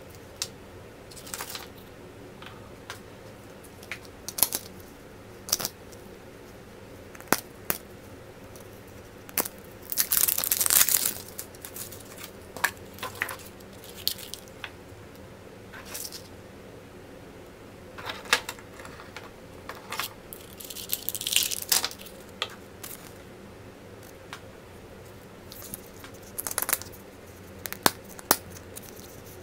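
Surprise-egg wrappers crinkling and tearing in short spells, with scattered sharp clicks between them, over a faint steady hum.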